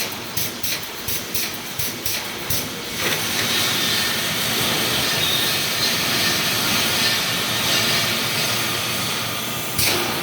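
Wire mesh welding machine running with a rhythmic clatter of about three strokes a second. About three seconds in the strokes give way to a steady hiss, and the strokes start again just before the end.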